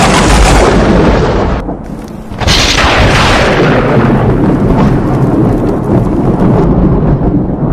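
Thunderstorm sound effect: a sudden loud thunderclap that fades over a couple of seconds, then a second crack about two and a half seconds in that rolls on as a continuous rumble.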